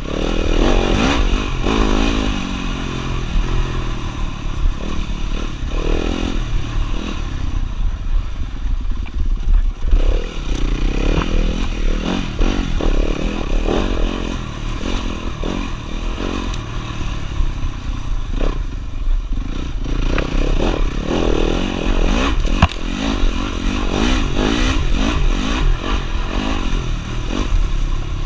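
Dirt bike engine revving up and down hard while racing along a rough bush trail, its pitch rising and falling again and again, with frequent knocks and rattles from the ride over ruts.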